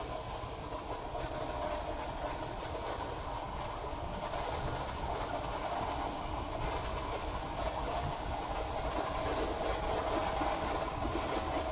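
Ford E350 van's 351 Windsor V8 running with a repeating thump-thump, the mystery noise the owner is chasing. He doesn't think the cracked passenger-side exhaust manifold ear is the cause, but could be wrong.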